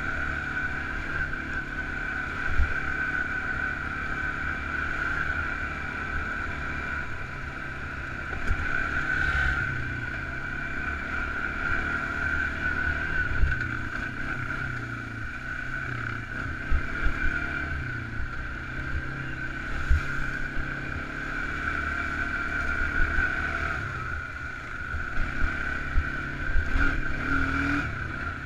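Single-cylinder four-stroke ATV engine running at varying throttle, its pitch rising and falling, with a steady high whine over it and several sharp knocks.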